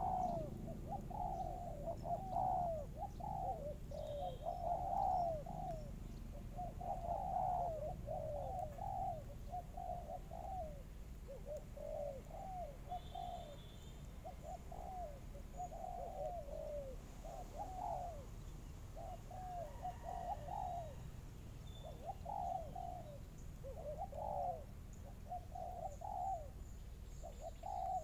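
Doves cooing: a long run of short, low coo notes in quick phrases, repeated with brief pauses, typical of a dove's bowing-coo display.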